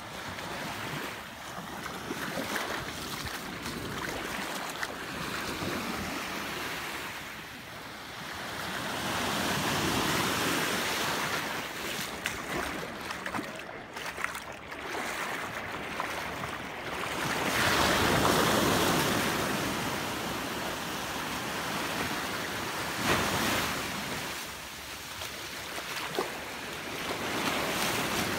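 Small waves washing up on a sandy beach, the surf swelling and falling back every several seconds, with a foot splashing in the shallow water and wind on the microphone.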